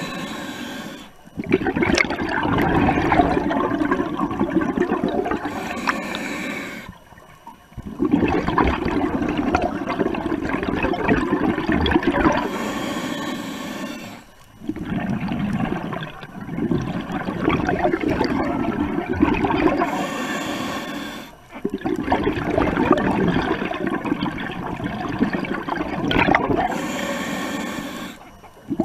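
Scuba diver breathing through a regulator underwater: a short hiss on each inhale and a long rush of exhaled bubbles, in a regular cycle of about five breaths.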